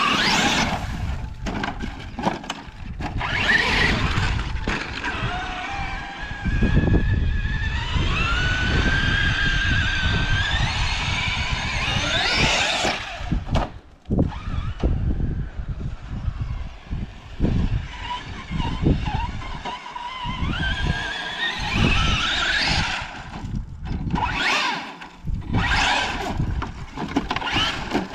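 Remote-control car being driven hard over dirt, its motor whining up and down in pitch as the throttle is worked, with tyres scrabbling and skidding.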